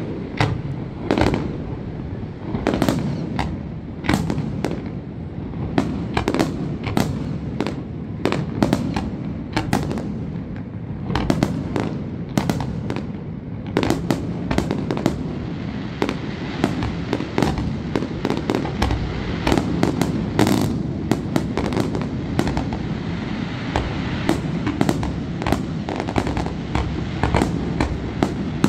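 Fireworks display: aerial shells bursting in a rapid, continuous string of sharp bangs, often several a second, over a steady low rumble, with a denser crackle in the second half.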